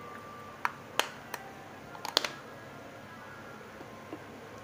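Hard plastic clicks and taps as a frosted plastic diffuser dome is handled and pressed onto an LED bulb's body: several sharp clicks in the first half, the loudest a quick cluster about two seconds in.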